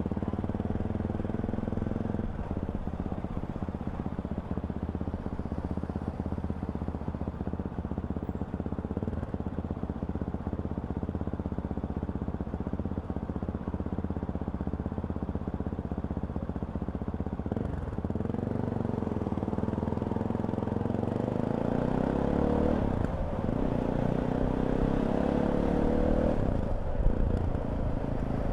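Fantic Caballero 500's single-cylinder four-stroke engine running on the road, steady at first. About two-thirds of the way through it pulls harder and rises in pitch, with two brief breaks near the end.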